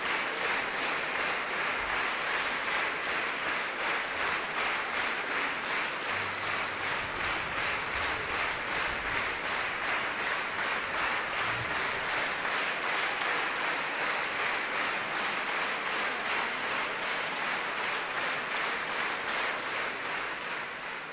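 Concert hall audience applauding, the clapping falling into a steady rhythmic beat.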